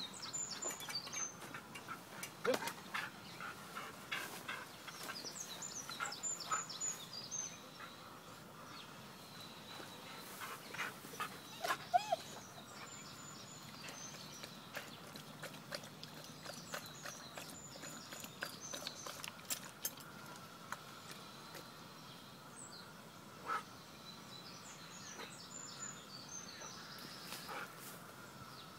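A Siberian husky moving about its wire-fenced pen: scattered light clicks and knocks throughout, with two brief whines, about two and a half and twelve seconds in, the loudest sounds. Small birds chirp in the background.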